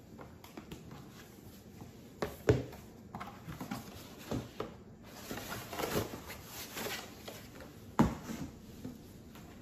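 Paper and cardboard being handled: a book closed and slid into a cardboard mailer, rustling and scraping, with a couple of sharp knocks, the loudest about two and a half seconds in and about eight seconds in, as the book and a cardboard box are set down and moved.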